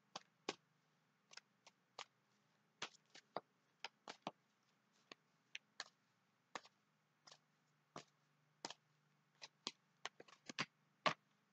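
A tarot deck being shuffled by hand: a string of short, irregular card clicks and taps, about two to three a second, over a faint steady low hum.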